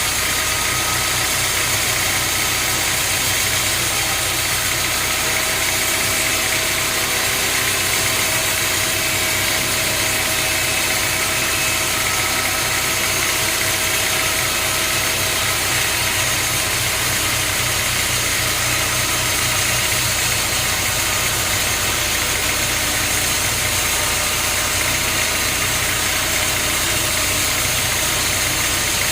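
Sawmill machinery running steadily: an engine-like hum with a constant high hiss, unchanging throughout.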